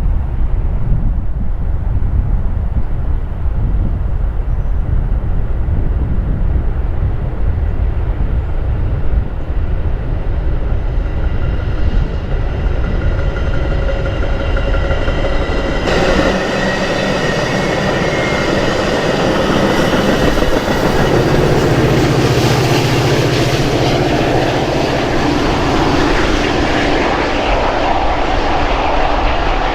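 Metra commuter train passing on the line. A heavy low rumble fills the first half; about halfway through the sound changes abruptly to louder, fuller train noise.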